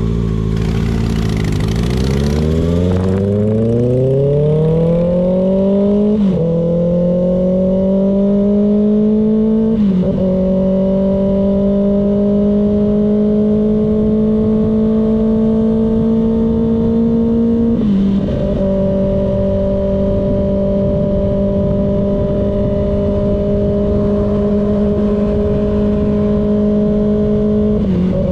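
Kawasaki ZX-6R's inline-four engine pulling hard up through the revs from low, then holding a steady high-revving note with brief dips in pitch a few times. There is a short hissing rush in the first few seconds.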